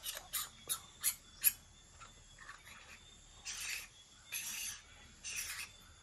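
Five quick clicks from handling a wide-angle add-on lens, then three short rasps, each about half a second, as its threaded metal parts are twisted together.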